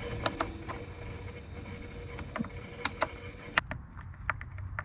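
Scattered sharp clicks and taps from handling the plastic housing of a Ryobi electric chainsaw as it is being taken apart, over a low steady hum.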